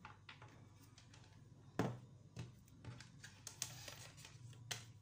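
Light clicks and taps of a small electrolytic capacitor being handled and set down on a wooden workbench. The sharpest click comes about two seconds in, and there are a few smaller ones after it, over a faint steady low hum.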